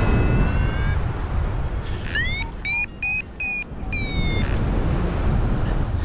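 Wind buffeting the microphone, with a paragliding variometer's electronic tone over it: a steady tone for the first second, then about two seconds in a rising chirp and a run of quick beeps at a higher pitch, the vario signalling lift in the gusty air, stopping at about four and a half seconds.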